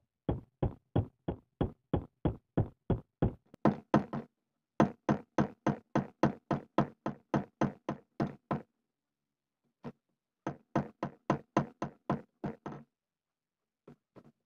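Hand hammer forging a red-hot golok (machete) blade on a small steel post anvil: quick, even blows about three to four a second, in three runs broken by short pauses, with a few lighter taps near the end.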